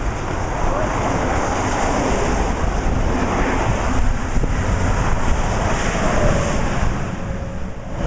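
Strong wind buffeting the microphone: a loud, steady noise with a heavy low rumble that swells and eases slightly.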